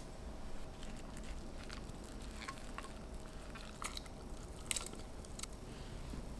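A few light, separate clicks and taps from handling food and kitchen utensils, over a faint steady hum.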